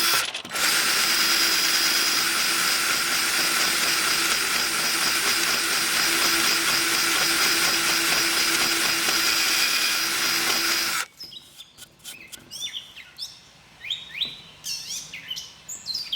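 Standard drill running a rotary rasp bit against wood, grinding steadily as it is worked back and forth. It pauses briefly about half a second in and stops abruptly about eleven seconds in. After that, birds chirp.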